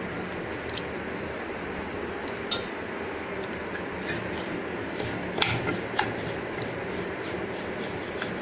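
Steel spoon clinking and scraping against a stainless steel pot while stirring semolina and yogurt into a batter, a string of sharp clinks from about two seconds in, the first the loudest. A steady low hum runs underneath.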